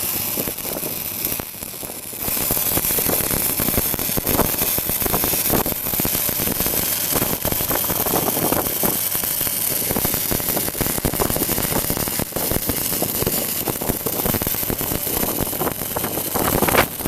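Arc welding on pipe: a steady, dense crackling hiss from the welding arc, dipping briefly about two seconds in, with an engine running underneath.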